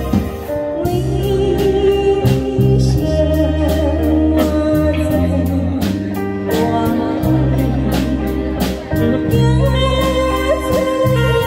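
Woman singing into a microphone through a PA, over a live band of electric guitars, saxophone, keyboard and a steady drum beat; her voice comes in about a second in.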